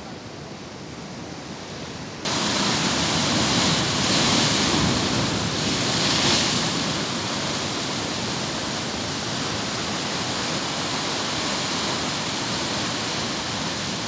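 Sea waves breaking and washing over shore rocks: a steady rush of surf. It is quieter at first, then suddenly much louder about two seconds in, swelling a couple of times before settling to an even roar.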